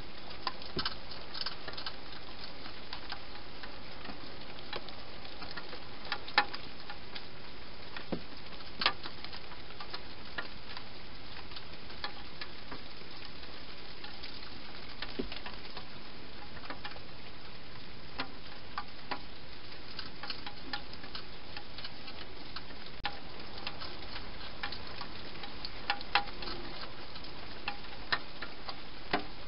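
Wild hedgehog eating dry food inside a plastic feeding box: irregular small crunches and clicks, a few louder ones, over a steady hiss.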